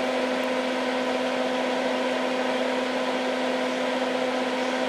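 Hakko soldering smoke absorber's fan running steadily: an even airy hiss with a low hum.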